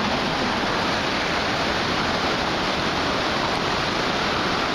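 Steady rush of high floodwater flowing through a flooded channel.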